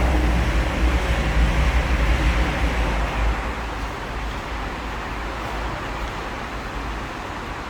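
Train running: a steady deep rumble with a rushing noise over it, easing a little about three and a half seconds in.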